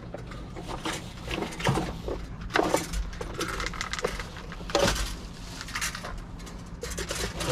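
Rummaging clatter: objects knocking, scraping and rustling against each other, with several sharper knocks, over a steady low hum.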